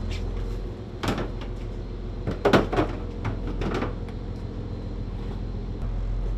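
Steady low hum of the trawler's engine heard inside the boat's cabin, with a few sharp knocks and clatters about one to four seconds in, the loudest around two and a half seconds.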